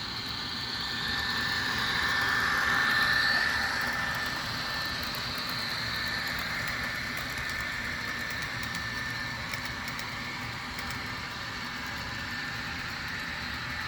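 Rapido HO scale F59PH model locomotive running on its track, its onboard DCC sound decoder playing a steady diesel engine sound with a high whine. The sound swells louder about two to three seconds in, then settles to a steady run.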